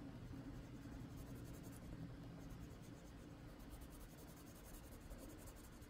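Faint, steady scratching of a Prismacolor wax-based coloured pencil shading on paper in short back-and-forth strokes.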